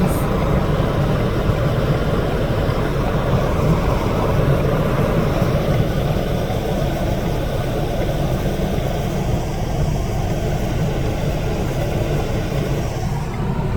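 Car driving, with steady engine and road noise heard from inside the cabin.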